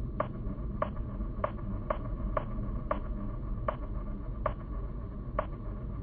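A series of short, sharp clicks or ticks, roughly one every half second to second at uneven spacing, over a low steady hum.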